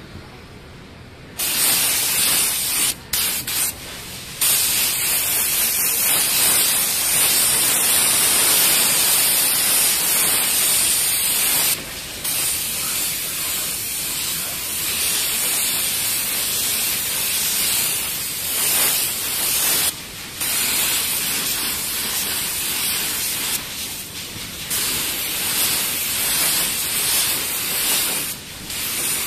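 Gravity-feed paint spray gun hissing as it sprays a full coat of UV primer-filler onto a car panel. The hiss starts about a second in and runs in long passes, broken by a few short pauses between strokes.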